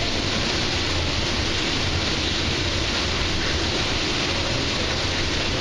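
Steady rushing and bubbling of heavily aerated water churning in an aquarium tank, with a low rumble underneath.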